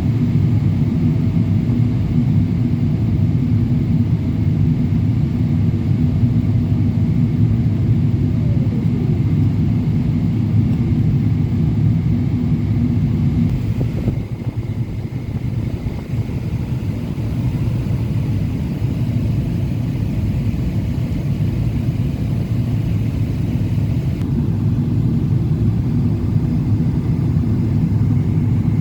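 Boeing 777-200LR in flight, heard from the cabin: a steady rumble of engines and airflow with a few steady hums. About a third of the way in, one higher tone slides down in pitch and fades, and the level dips a little around the middle before it steadies again.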